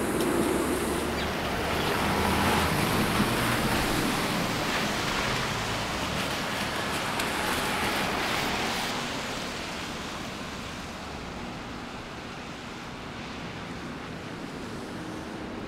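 City street traffic in falling snow: the rushing tyre noise of passing vehicles, louder through the first nine seconds or so, then easing to a quieter steady hush.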